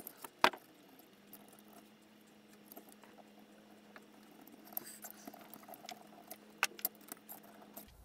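Faint clicks and taps of an aluminium servo bracket and its small screws being handled and taken apart by hand. One sharper click comes about half a second in, and a few light clicks follow near the end, over a faint steady hum.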